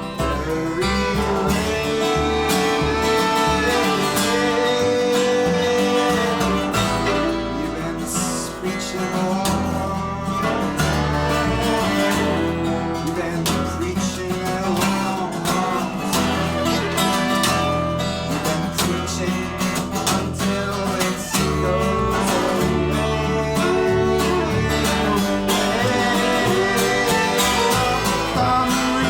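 Live acoustic folk band playing an instrumental passage: acoustic guitar over a bass line, with long held, gently bending notes above it, as from a bowed viola.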